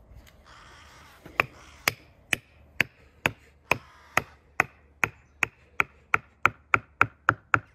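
A hammer knocking a wooden stake down into clay packed in the top of a log: a steady run of sharp knocks, about two a second at first and quickening toward the end.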